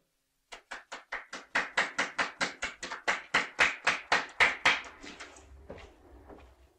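Thin applause from a few people: sharp hand claps at about five a second, growing louder and then petering out.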